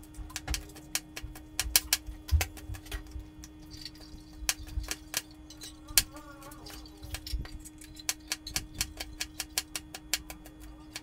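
Kitchen knife cutting a red bell pepper on a plastic cutting board: irregular sharp knocks of the blade through the pepper onto the board, coming in quick runs of about three or four strokes a second near the end as the strips are diced.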